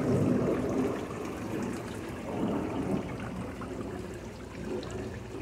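Water trickling and splashing from running decorative garden fountains, growing fainter toward the end.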